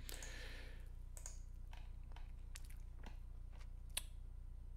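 Computer mouse clicking: about seven sharp, faint single clicks spread out as menus and a drop-down list are worked, the loudest about four seconds in, over a faint steady low hum.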